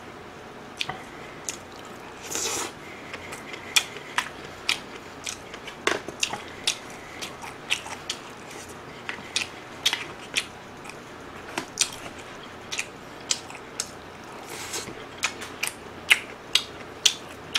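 A person chewing food close to the microphone: a steady run of short wet mouth clicks and smacks, about two a second, with a brief rustle about two and a half seconds in.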